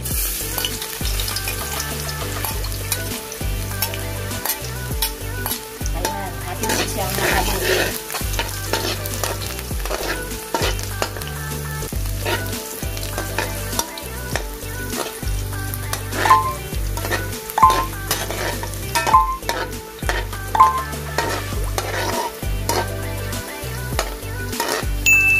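Chopped garlic sizzling in hot cooking oil in a metal wok, stirred with a metal ladle that scrapes and clicks against the pan. Several sharper, louder clinks come in the second half.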